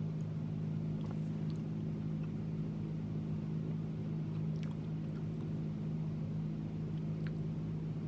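Steady low mechanical hum, like a room fan or ventilation running, with a few faint clicks of a person chewing a bite of toast sandwich.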